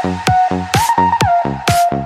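Electronic dance music: a steady kick-drum beat under a held synth lead that steps up in pitch and back down.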